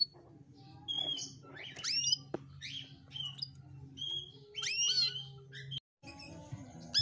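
Female canary calling: a string of short, sweeping chirps, about one a second, over a steady low hum, with a brief dropout near the end. These are hen calls of the kind used to lure a silent male canary into song.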